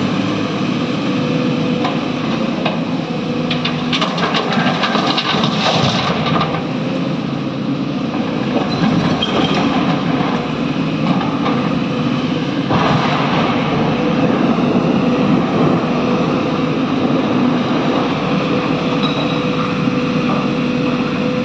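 Excavator working while loading a truck: its diesel engine runs steadily. There are two stretches of clattering and knocking, about four seconds in and again about thirteen seconds in.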